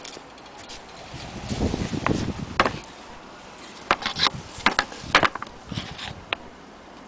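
Wooden wall clock being handled: a cluster of soft knocks about a second and a half in, then a run of sharp clicks and taps through the middle.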